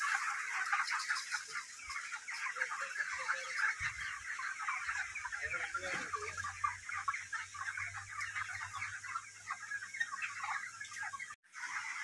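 A large flock of broiler chickens cheeping and chirping all at once in a dense, unbroken chorus, with a few lower calls standing out now and then.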